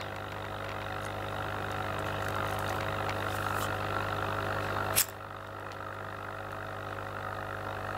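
Aquarium air pump humming steadily as it blows air into a homemade cold smoke generator, with one sharp click of a lighter about five seconds in.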